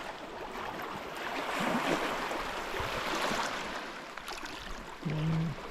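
Small lake waves lapping steadily at the shoreline, with a voice starting near the end.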